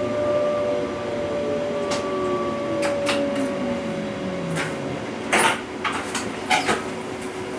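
Electric traction drive of a DB class 425 multiple unit whining with tones that fall steadily in pitch as the train slows to a stop, over rolling wheel noise. From about five seconds in come several sharp knocks, the loudest two close together, as the wheels run over rail joints and points.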